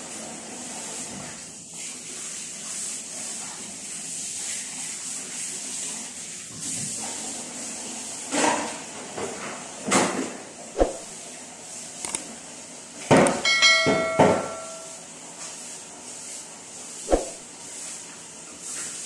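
Household clatter from kitchen cleaning: knocks and bumps of things being handled and set down over a steady hiss, busiest in the second half, with a brief metallic ringing clink about two-thirds of the way through and a sharp single knock near the end.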